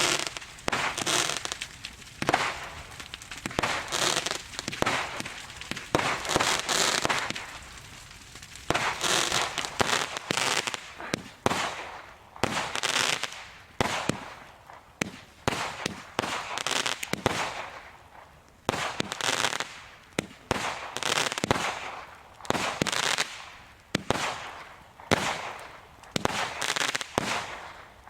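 Fireworks display: a rapid series of sharp bangs, each followed by a second or so of hissing noise, coming every one to two seconds throughout.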